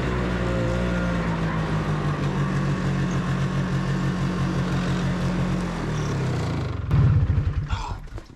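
A small engine running steadily, then winding down about six seconds in and chugging in slow, loud pulses as it stops.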